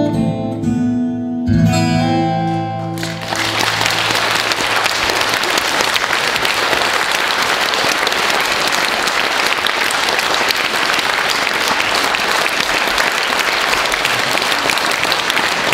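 The last chords of an acoustic guitar song ring out and stop about three seconds in, and an audience breaks into steady applause that fills the rest.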